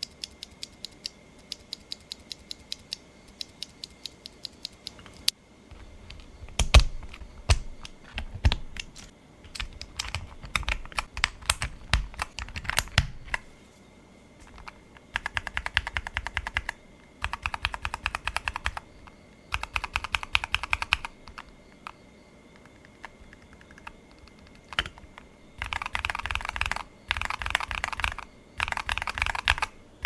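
Mechanical keyboard with Gateron Keyfirst Cream linear switches being typed on. It starts with single key presses at an even pace of about three a second, then from about six seconds in comes louder, faster typing. Later there are bursts of rapid key presses, each a second or two long, separated by short pauses.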